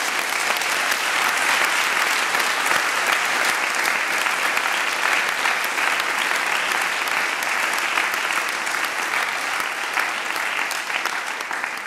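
Audience applauding: dense, steady hand-clapping that dies down at the end.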